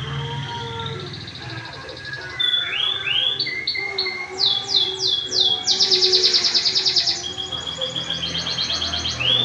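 Domestic canary singing. A couple of rising notes come about two and a half seconds in, then a series of quick falling whistles, then fast high rolls and trills from about halfway through to near the end. A low steady hum runs underneath.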